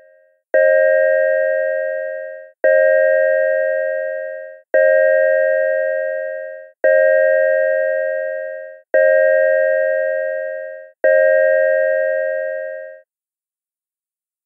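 The synthesized 'Chime' signal of an ASC digital electronic siren controller: six two-tone chime strikes about two seconds apart, each starting suddenly and fading away, stopping about 13 seconds in.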